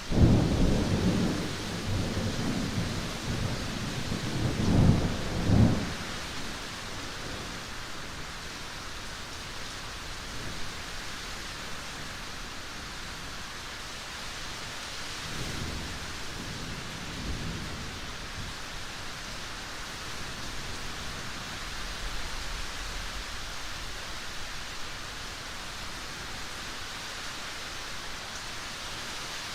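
Thunderstorm: a thunderclap breaks sharply at the start and rumbles for about six seconds, swelling twice near the end of the roll, over steady heavy rain. A fainter, distant roll of thunder comes about halfway through, then the rain goes on alone.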